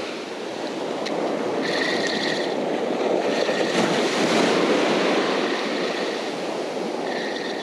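Ocean surf: small waves breaking and washing up the sand in a steady, swelling rush.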